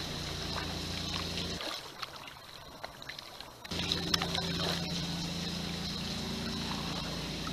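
Kayak paddling on calm water: small splashes and drips from the paddle blades over a steady low hum, which drops out for about two seconds partway through.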